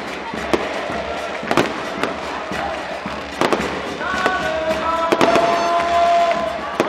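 Firecrackers going off in sharp, irregular bangs over the noise of a celebrating crowd; from about four seconds in, long steady held tones join in.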